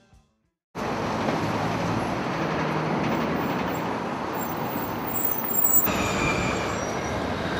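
Busy city street traffic noise: a dense, steady roar of engines and tyres that starts abruptly after a moment of silence, with a brief high squeal about six seconds in.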